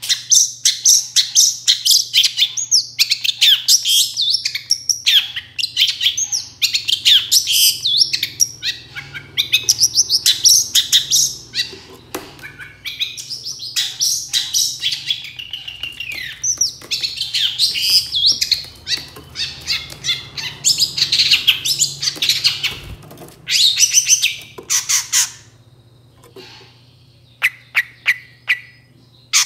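A long-tailed shrike sings in full song: a rapid, almost unbroken stream of sharp chattering and squeaky notes. About 25 seconds in it breaks off, and only a few short calls follow.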